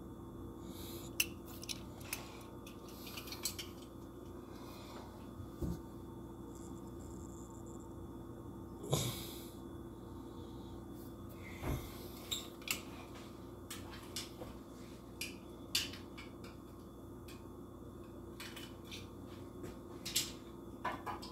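Scattered small clicks and taps of die-cast toy cars being handled and then set down on a wooden table, over a steady low room hum.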